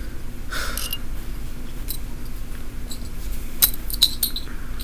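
Small metal clicks and clinks of button pins and keychain charms being handled on a bag, scattered a few times, with a short rustle about half a second in.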